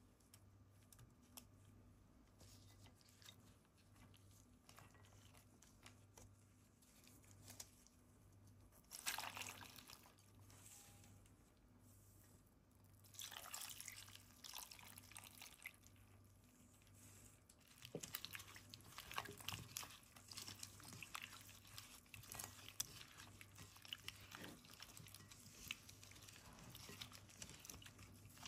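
Faint kitchen sounds at a glass bowl of jackfruit pieces: liquid poured in briefly about nine seconds in and again for a couple of seconds around the middle, then from about eighteen seconds a gloved hand squishing and mixing the pieces in coconut milk and spices. A faint low hum runs underneath.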